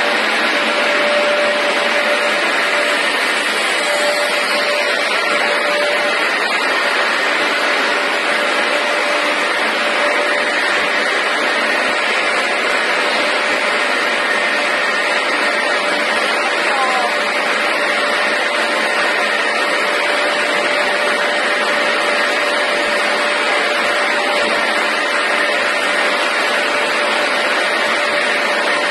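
Vega F 1000 continuous potato-chip fryer line running: a steady mechanical whir of the conveyor and fryer with a constant whine.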